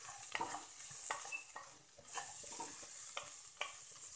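Wooden spoon stirring spiced diced potatoes and French beans in a steel pressure cooker, with a series of short scrapes and clicks against the pot. Under it, a low sizzle of the oil frying the spices on a low flame.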